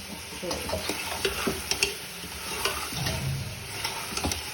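A spoon stirring and knocking in a pot of pumpkin and chicken frying with spices, with a steady sizzle and scattered clicks of the spoon against the pot.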